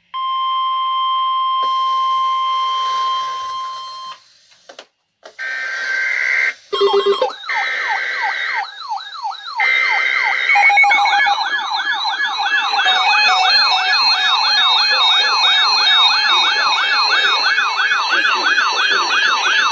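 Emergency alert attention tones. A steady electronic alarm tone sounds for about four seconds and cuts off. After a short gap comes a warbling siren-like alert signal of fast rising sweeps, about three a second, broken at first and then running steadily and louder. This is the attention signal that comes before a broadcast severe weather alert.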